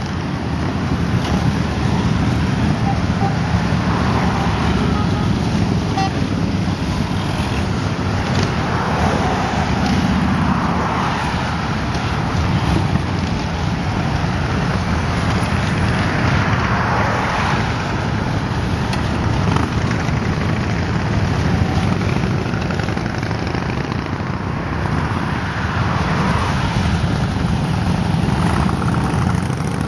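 A long line of motorcycles riding past, their engines running in a steady stream of sound that swells and eases in waves as groups of bikes go by.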